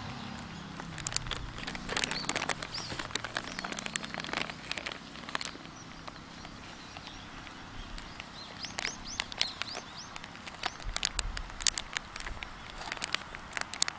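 A plastic zip-top freezer bag crinkling and clicking in the hands as air is pressed out of it and its zipper is pressed shut. A few bird chirps sound around the third second and again about nine seconds in.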